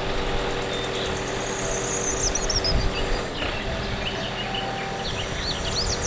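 Truck-mounted aerial work platform's engine running with a steady hum, while birds chirp now and then, most around two seconds in and near the end.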